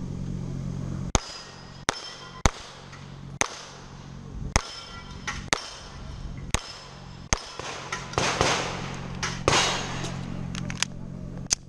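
Pistol shots fired one at a time at steel plate targets, about a dozen at an uneven pace of roughly one a second. Some shots are followed by a brief metallic ring from a struck steel plate.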